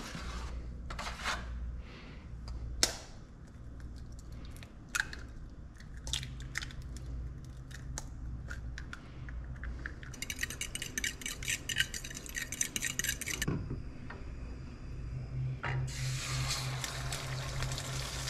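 Eggs being made at a kitchen counter and stove: an egg carton and utensils are handled, and eggs are cracked against a bowl with a knife, in a run of separate clicks and knocks. A few seconds of rapid clicking follow as the eggs are beaten in the bowl. Near the end a steady sizzle starts as the beaten eggs go into a hot pan.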